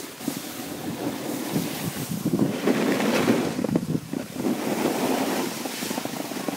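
Skis sliding and scraping over hard-packed snow, with wind buffeting the microphone; the scraping hiss swells in the middle and eases off again.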